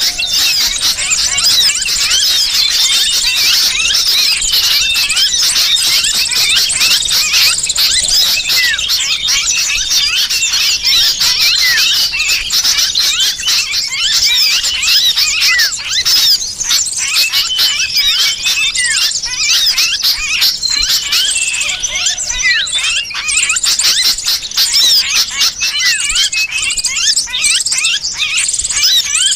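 Bird-trapping lure call: a dense, unbroken chatter of many small birds with the shrill distress calls of a trapped sooty-headed bulbul (kutilang) mixed in. The sound is made of high, rapid chirps and squeals packed closely together.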